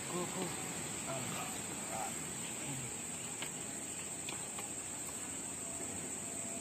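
Steady high-pitched drone of insects chirring in the surrounding vegetation.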